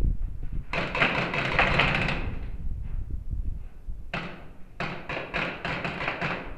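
Paintball markers firing in quick strings of sharp pops that echo in a large hall: a dense burst in the first two seconds, then about four shots a second from around four seconds in.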